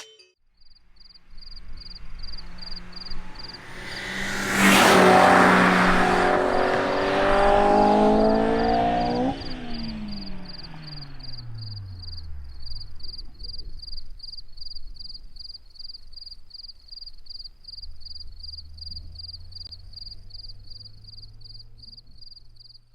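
A car drives past: its engine note builds as it approaches and is loudest for several seconds, then drops sharply in pitch as it passes and fades away. A low steady engine hum follows near the end.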